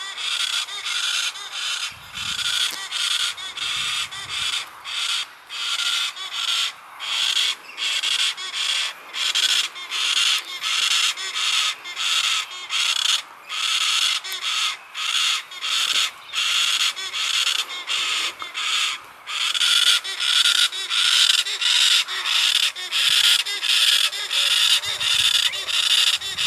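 Galahs giving a continuous run of harsh rasping screeches, about one and a half calls a second, louder over the last third.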